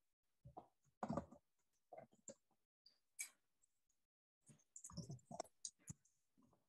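Near silence with faint, scattered clicks and soft knocks coming through a video call, at irregular moments about a second apart.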